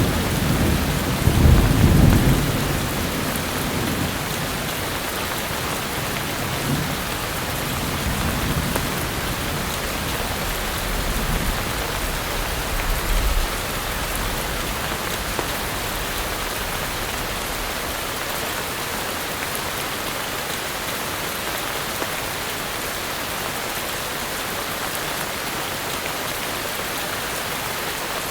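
Heavy rain falling steadily, with low rolls of thunder in the first half, the strongest about a second or two in.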